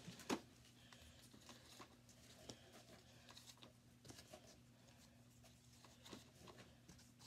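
Faint scattered clicks and taps of plastic Nerf blasters being handled, with one sharper click about a third of a second in, over a steady low hum.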